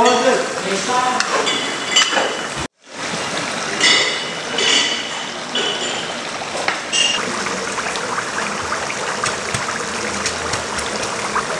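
Steady rush of running or pouring water, with people talking in the background; the sound drops out briefly about three seconds in.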